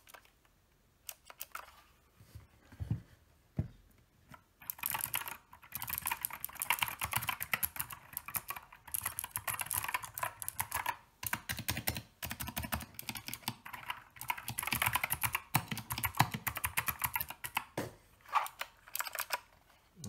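Typing on a Tezarre TK61 Pro 60% mechanical keyboard with Gateron Optical Blue clicky switches and PBT keycaps. A few single key presses come first, then from about five seconds in a fast, continuous run of keystrokes, thinning to a few presses near the end.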